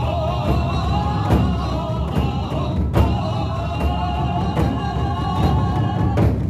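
Korean ritual music: drums booming steadily under a sustained melodic line, with a sharp strike about three seconds in.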